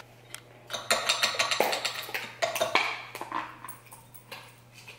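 Metal muffin tin and kitchenware clattering and clinking on a countertop as they are handled: a string of short knocks and clinks with some rustling between them.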